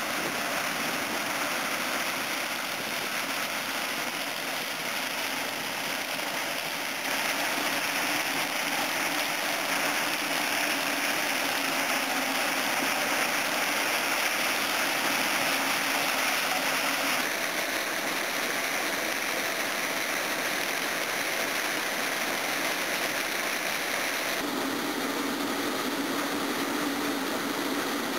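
Claas Lexion 540 combine harvester running as it harvests maize: a steady din of engine and threshing machinery. The tone shifts abruptly about 7, 17 and 24 seconds in.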